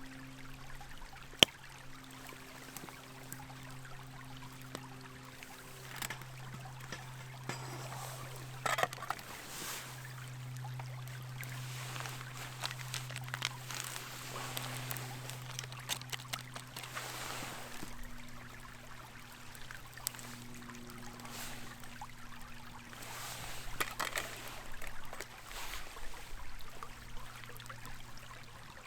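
Water trickling steadily, over a low steady hum, with scattered sharp clicks and a few brief louder swells of hiss.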